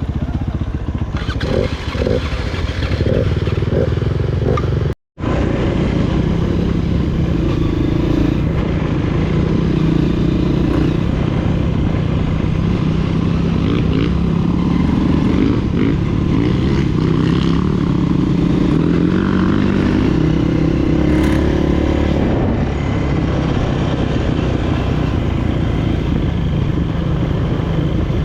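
Honda CRF230F's single-cylinder four-stroke engine running steadily, its pitch drifting up and down with engine speed. The sound cuts out completely for a moment about five seconds in.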